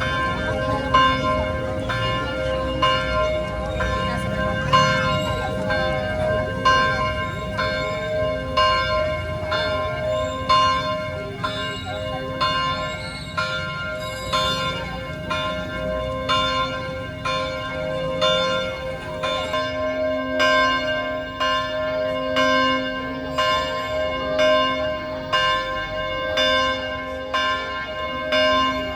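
Church bell ringing, struck steadily about once a second, each strike ringing on into the next.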